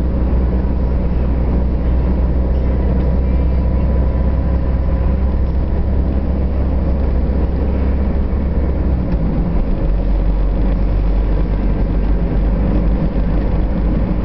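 Steady engine and road rumble inside a moving car's cabin at cruising speed. The low hum drops to a lower pitch about nine seconds in.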